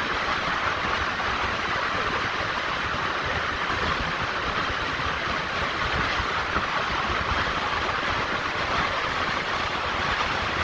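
Steady road and wind noise of a moving car: an even hiss over a low rumble, with no change in pace.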